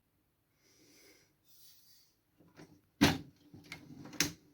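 Sharp knocks and clicks of a TV's hinged chassis board being released and swung open, the first loud knock about three seconds in and another near the end.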